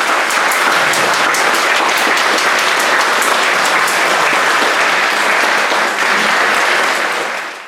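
Audience applauding steadily: dense, even clapping from a full hall, fading out and cutting off near the end.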